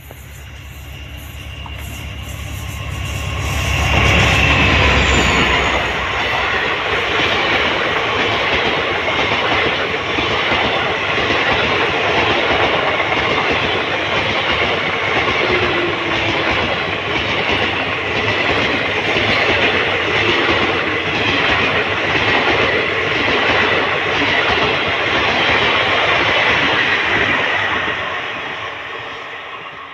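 WDP4D diesel locomotive (16-cylinder EMD two-stroke) approaching and passing at speed, its deep engine rumble building to a peak about four seconds in. A long rake of passenger sleeper coaches follows, wheels clattering over the rails in a steady clickety-clack, fading near the end.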